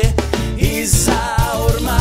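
Music: a song with a steady drum beat under a wavering melody line.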